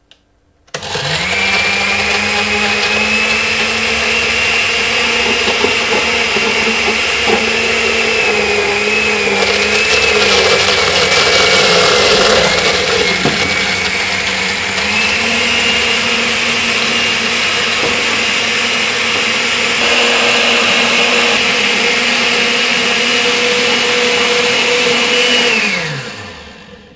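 Countertop blender with a glass jar running a smoothie of fruit, spinach, ice and water. The motor starts within the first second and runs with a steady whine. Its pitch sags and wavers for a few seconds midway as the blades work through the load, then picks back up. It winds down with a falling pitch about a second before the end.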